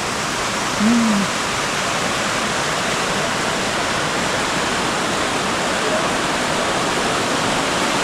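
Waterfall's water rushing steadily. A brief voiced murmur comes about a second in.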